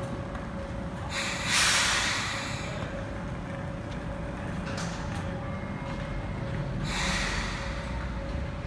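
Hakone Tozan Railway electric car 1002 standing at the platform with a steady humming tone, broken by two bursts of compressed-air hiss: a loud one about a second and a half in, and a second, shorter one about seven seconds in.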